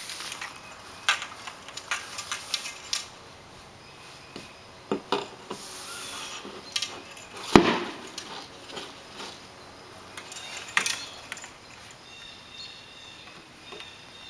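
Aluminium mast and spars of a small sailboat being handled and raised: scattered light clinks and knocks, a brief rustle of sail cloth, and one loud knock about seven and a half seconds in as the mast drops into its step in the hull.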